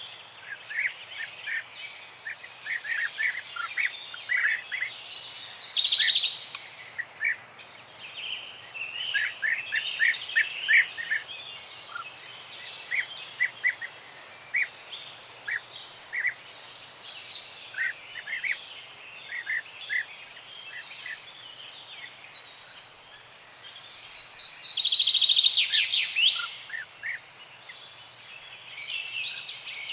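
Several wild birds chirping and singing: many short, repeated chirps, with a loud, rapid trilling song about five seconds in and again near the end, over a faint steady background hiss.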